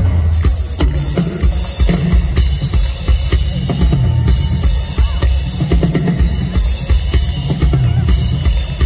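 Rock drum kit played live through a large concert PA: bass drum and snare hitting a steady, driving beat under a constant wash of cymbals.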